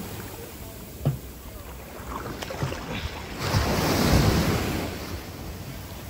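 Small sea waves washing up over the sand and foaming, swelling to their loudest about halfway through, with wind on the microphone.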